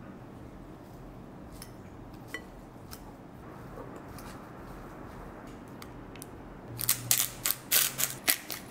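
Hand-held seasoning mill twisted over a bowl: a quick run of sharp grinding clicks near the end, after a stretch of faint taps against low room tone.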